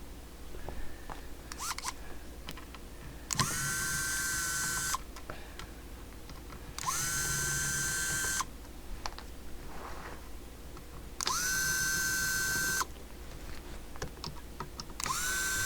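Electric screwdriver backing out the CB radio's cover screws: four short runs of about a second and a half each, the motor whining up to speed and holding steady, with small clicks and handling noises between runs.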